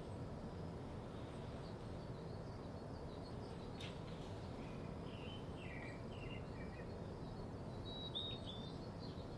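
Small birds chirping in short, high notes, several calls clustered from about five to eight and a half seconds in, over a steady low background hiss. A single faint click comes just before four seconds in.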